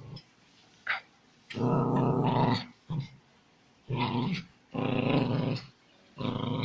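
A dog growling while it bites and tugs at a sock held out by hand: about four growls, the longest lasting about a second, with short pauses between them.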